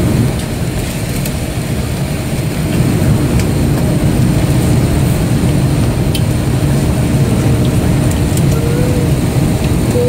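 Steady cabin noise inside an Airbus A330-200 airliner parked at the gate: a low, even rumble with a constant hum.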